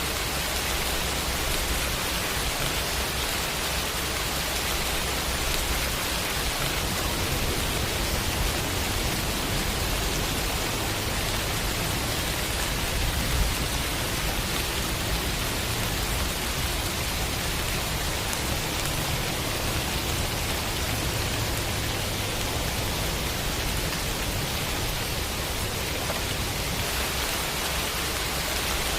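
Rain sound effect: steady, even rain hiss with a low rumble underneath.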